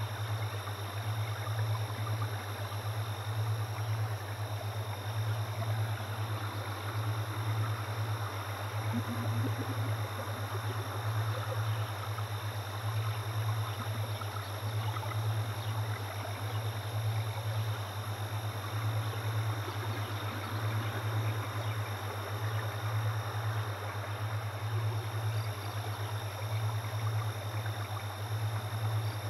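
Shower water running with an even hiss, under a steady low hum with a regular pulse that is the loudest sound throughout.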